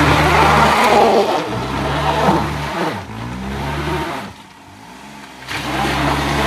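Daihatsu Mira e:S's small three-cylinder engine revving up and holding high revs, easing off and climbing again several times. It is quietest for about a second a little after the four-second mark before picking up again.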